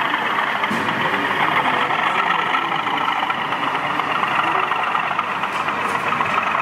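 Steady murmur of many voices and general hall noise at a model railway exhibition, with no single sound standing out.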